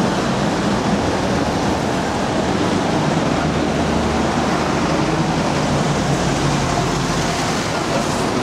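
Steady city street noise: a continuous rushing hiss with a low rumble underneath, unchanging throughout.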